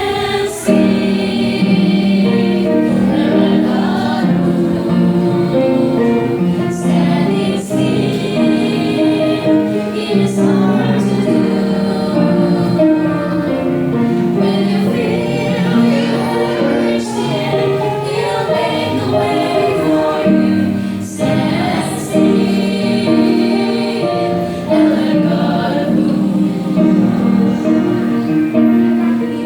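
A choir singing a gospel hymn: several voices in harmony holding long notes.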